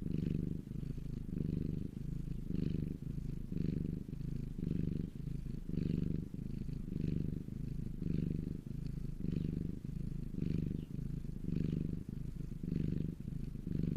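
Domestic cat purring in a steady pulsing rhythm, about two beats a second.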